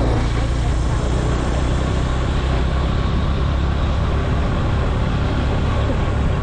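Motorcycle engine running steadily at cruising speed, with wind noise rushing over the microphone.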